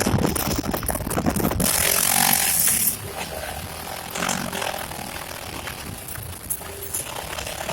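Honda Pioneer 700-4 side-by-side under way on a trail, its single-cylinder engine running with rattle and hiss. It is loud for about the first three seconds, then noticeably quieter.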